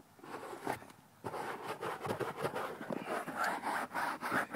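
Rubbing and scraping against cloth seat upholstery in quick, uneven strokes, starting about a second in.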